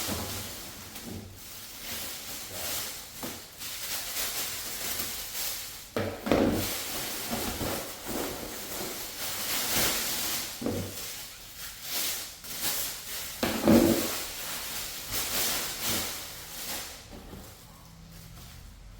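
Ceiling fan parts being unpacked by hand: packaging rustling, with a few dull knocks as pieces are handled and set down.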